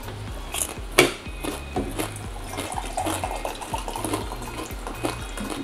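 A drink poured from a plastic pitcher into a cup, running for a couple of seconds past the middle. A single sharp click about a second in is the loudest sound, with smaller clicks and handling noises around it.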